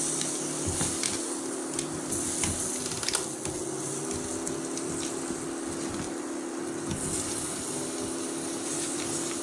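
Wooden spatula stirring a wet besan, coconut and milk mixture in a pan on an induction cooktop: a steady sizzle with scattered clicks and scrapes of the spatula against the pan, over a steady low hum.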